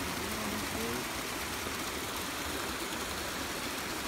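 Small waterfall cascading over rocks: a steady, even rush of water.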